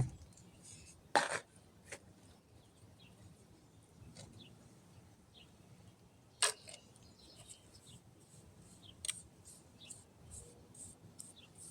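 Scattered light scrapes and clicks of a small hand tool working a cement patch mix onto a concrete bowl, with a few sharper taps and faint scratching between them.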